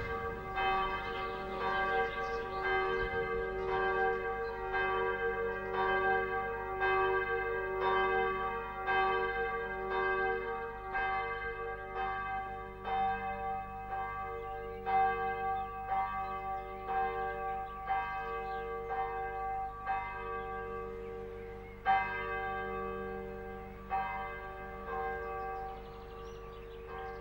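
Church bells ringing, with a new strike about every second over a steady ring of several tones, slowly fading toward the end.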